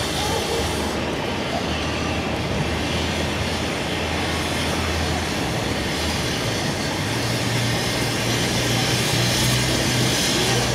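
A large engine running steadily over a haze of outdoor noise, its low hum stepping up in pitch about seven seconds in.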